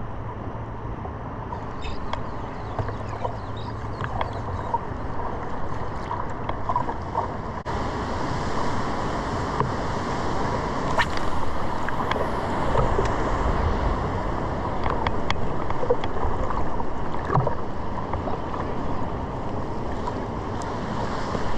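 Ocean water sloshing and lapping around a surfboard on the sea, with occasional short sharp splashes or knocks.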